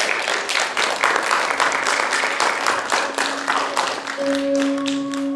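Applause from many people clapping. About three seconds in, a steady held musical note comes in and grows as the clapping thins out.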